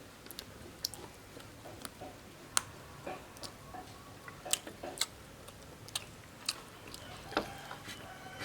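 A person eating and chewing, with irregular sharp clicks and smacks of the mouth, about one or two a second.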